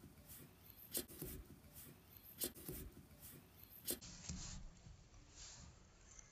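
Felt-tip marker writing on sticky tape stuck over paper: faint scratchy strokes with a few sharp clicks.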